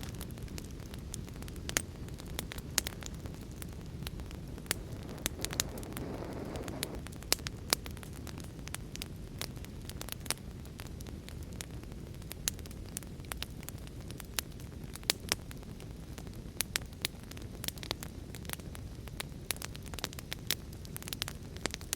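Fire crackling: frequent sharp pops and snaps over a steady low rumble, with a brief soft rush about six seconds in.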